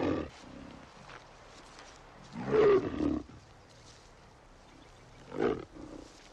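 Brown bear roaring twice: a longer roar about two and a half seconds in and a shorter one near the end.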